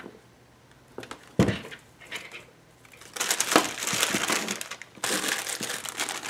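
A light knock on the table about a second and a half in, then from about halfway a clear plastic bag holding battery clip leads is picked up and handled, its plastic crinkling continuously with a short break near the end.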